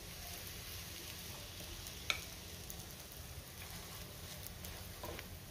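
Aloo paratha faintly sizzling in oil on a hot nonstick pan while a spatula spreads oil over it. One sharp click comes about two seconds in, and a couple of light clicks near the end.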